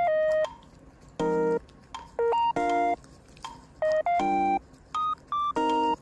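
Background music: a simple electronic melody of short, beeping synth notes at changing pitches, sounding like a ringtone.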